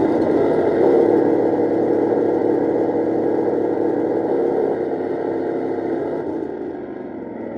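Simulated tank engine running, played by the Tamiya RC tank's sound unit through its small speaker. It is loudest about a second in and slowly fades toward the end.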